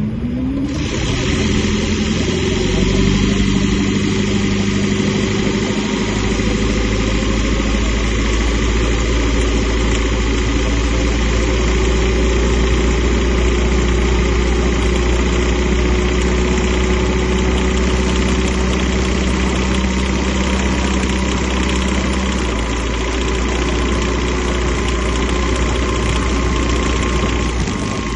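Second-generation Toyota Prius's 1.5-litre four-cylinder petrol engine starting up, then running steadily, with a change in its note near the end. The owner says this engine develops a knock when hot and under load.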